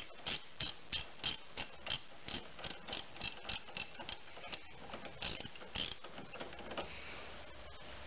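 Hand socket ratchet clicking as a 15 mm bolt is turned out, about three clicks a second; the clicking fades and stops about seven seconds in.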